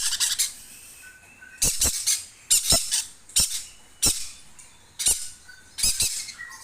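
Hand-fed green-cheeked conure chick giving short, harsh squawking calls, about one a second, the rasping begging calls of a young parrot.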